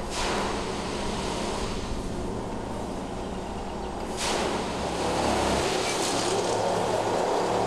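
Plasser & Theurer Dynamic Stopfexpress 09-4X track tamping machine working along the line: steady diesel engine and machinery noise. About four seconds in, a short rush of noise, and the machine sounds louder and closer.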